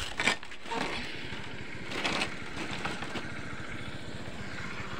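A motorcycle engine running at a steady idle. A few brief scuffing noises come at the very start and again about two seconds in.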